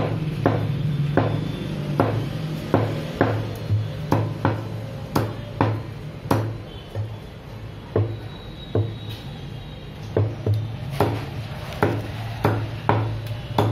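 Cleaver chopping skinless chicken on a wooden butcher's block: sharp chops about two a second, thinning to a pause in the middle before picking up again.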